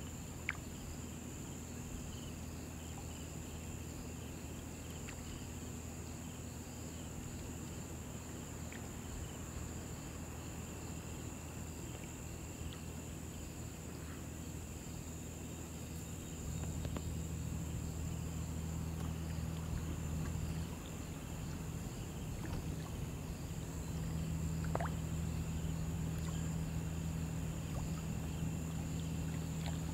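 Summer insects shrilling without a break, a high continuous buzz with a fainter pulsing chirp beneath it, over a low steady hum that grows louder about halfway through and again near the end.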